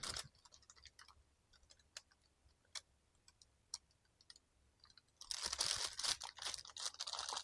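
A few faint scattered clicks, then, about five seconds in, a couple of seconds of crinkling and rustling as firecracker packs in their paper and plastic wrapping are handled.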